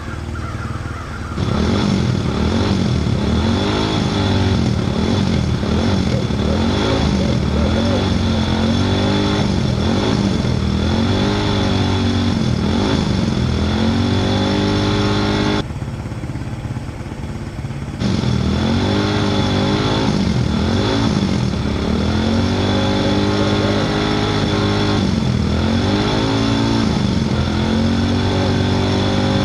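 A small vehicle's engine revved over and over, its pitch sweeping up and falling back every couple of seconds, with a steady high whine underneath. About halfway through the revving drops out for about two seconds, then starts again.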